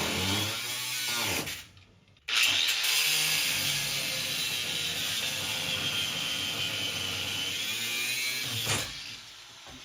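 A power tool cutting through metal, cutting out a floor shifter that was welded in place. It stops briefly about two seconds in, then starts again with a high whine that slowly drops in pitch, and cuts off near the end.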